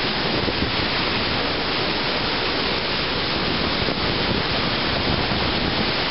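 Iguaçu Falls: a massive waterfall's torrent, giving a loud, steady rushing of falling water.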